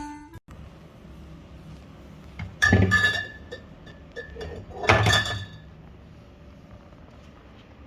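Two clinks of hard objects knocked together, about two seconds apart, each ringing briefly, with a few light ticks between them.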